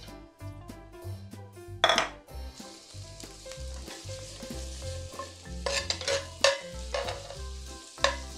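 Vegetables stir-frying in hot oil in a frying pan: a loud clatter about two seconds in, then steady sizzling with the spatula clacking against the pan several times near the end. Background music with a steady beat plays underneath.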